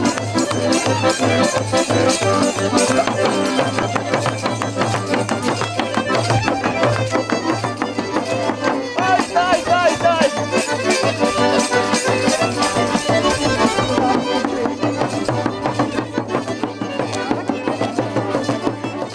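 Ukrainian folk music with a fiddle playing over a steady beat.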